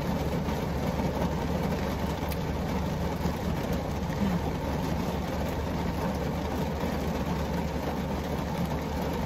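Heavy rain falling on the roof and windows of a car, heard from inside the cabin as a steady, even hiss, with a low steady rumble underneath.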